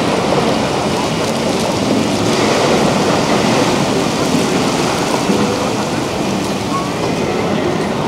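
Steady, loud rushing outdoor noise with faint voices mixed in.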